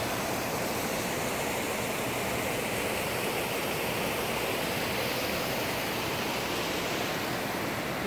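Mountain creek rushing and splashing over rocks and a small cascade: a steady, unbroken rush of water.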